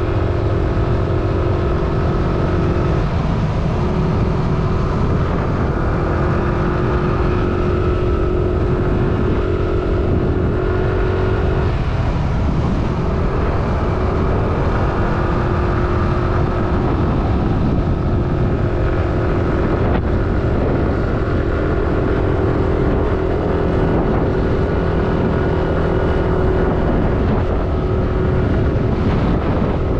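Motorcycle engine running steadily at cruising speed, under a dense rush of wind and road noise. Its steady note breaks briefly twice, about 3 and 12 seconds in.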